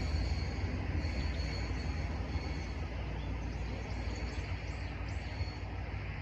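Rumble of a train fading slowly as it moves away from the level crossing, with a few faint bird chirps about four seconds in.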